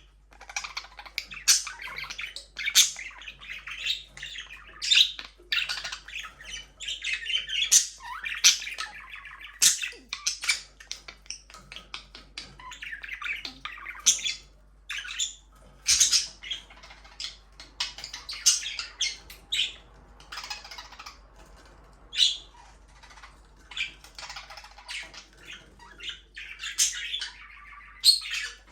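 A flock of budgerigars chirping and squawking: many short, sharp calls tumbling over one another, with a few louder squawks standing out.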